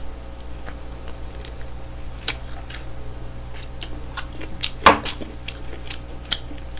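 Close-miked eating: chewing of smoked chicken with wet mouth clicks and smacks as meat is pulled off the bone and fingers are licked, over a steady low hum. One louder click about five seconds in.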